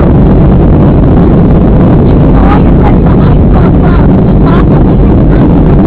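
Steady roar of jet engines and airflow inside the cabin of a Southwest Airlines Boeing 737 in flight, loud and unbroken, with faint passenger voices under it.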